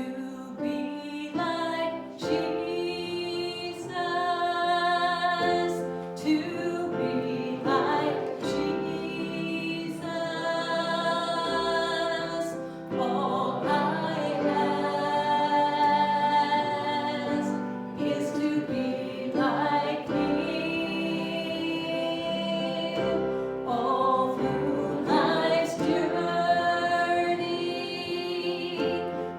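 Church worship music: a sung hymn or praise song, with voices holding long notes over instrumental accompaniment.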